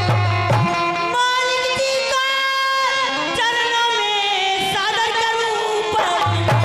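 Live folk stage music: a hand drum beating deep strokes under a melody. The drum drops out about a second in while a wavering, sliding melodic line carries on, and it comes back near the end.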